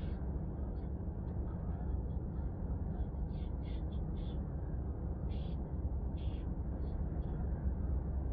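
Steady low road and engine rumble inside a moving car's cabin, with short faint high chirps scattered through it.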